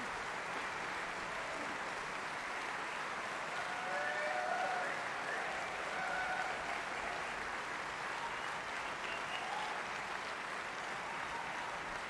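Large audience applauding steadily at the end of a song, with a few cheers partway through.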